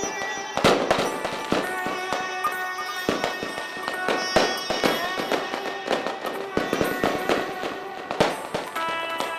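Many firecrackers and fireworks going off in irregular sharp bangs, some louder than others, over music with sustained tones.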